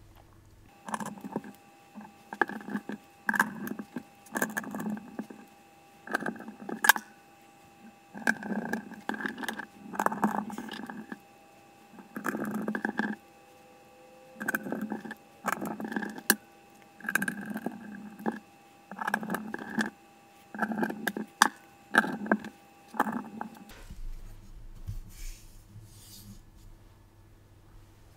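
Screwdriver driving small screws into a graphics card's metal back and front plates, in about twenty short bursts under a second each, stopping a few seconds before the end.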